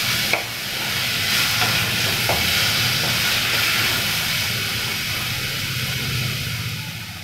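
Chopped tomatoes and onions sizzling in hot oil in an iron kadai as they are stirred with a wooden spatula, with a low steady hum underneath. The sizzle fades near the end.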